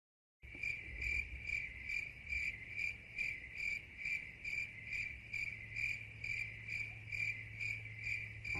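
Crickets chirping in an even, steady rhythm of about two and a half chirps a second, with a low steady hum beneath. The chirping starts suddenly about half a second in.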